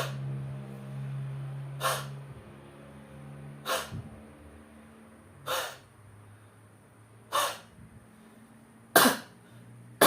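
A person doing forced expiration for airway clearance: five forced open-mouth huffs about two seconds apart, then two louder supported coughs near the end.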